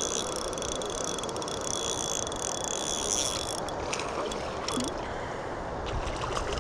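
Steady rush of flowing river water. A high-pitched whir runs over it and stops about three and a half seconds in, and there are a few faint clicks.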